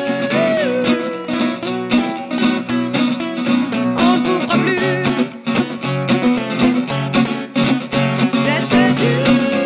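Guitar-driven band music with a steady drum beat. A held lead note bends in pitch near the start and again near the end.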